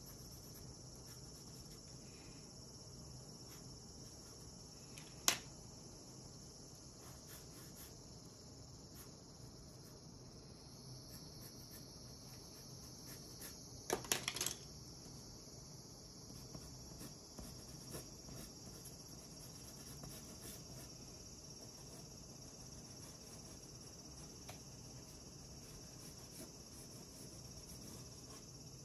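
Wooden colored pencils clicking against each other as one is taken from a loose pile, a short clatter about fourteen seconds in, with one sharp click earlier. Under it runs a faint, steady, high-pitched hiss.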